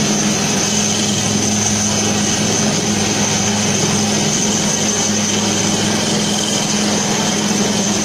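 Helicopter hovering low overhead: a steady drone of rotor and engine with a high whine, unchanging throughout.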